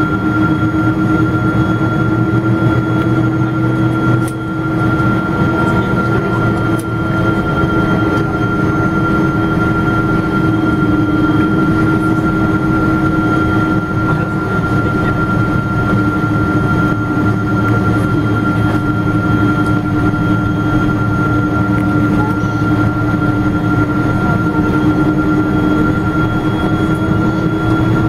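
Airliner engines and airflow heard inside the cabin while the jet taxis: a steady, loud hum with a constant high whine running over it.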